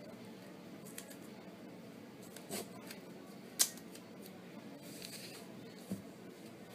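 Cotton bandage being handled as its end is tucked in around the knee: soft rustling with a few light clicks, the sharpest about three and a half seconds in, over a low steady hum.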